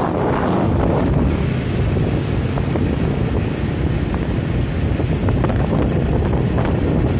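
Heavy, steady wind buffeting on the microphone of a moving motorcycle, with the motorcycles' engines and road noise mixed in underneath.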